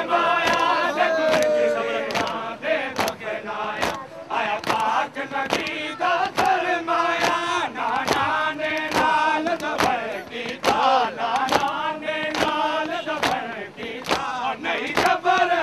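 Men chanting a noha, a mourning lament, in unison, over a steady beat of sharp slaps from hands beating chests (matam).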